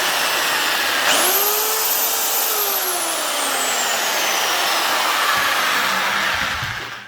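Electric power drill running with a high motor whine. Its pitch falls as the motor slows, jumps sharply back up about a second in, then sinks slowly again over several seconds before the sound cuts off at the end.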